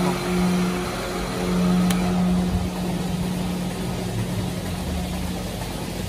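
Steady mechanical hum of milking-parlour machinery, with one sharp click about two seconds in.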